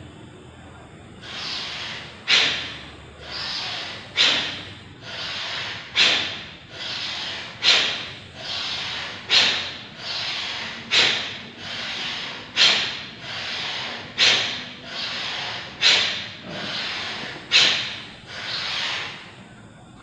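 A man breathing deeply and audibly in a steady rhythm during a yoga breathing exercise, about ten cycles. Each is a slow breath in followed by a sharp, forceful breath out, meant to expel stale air from the belly.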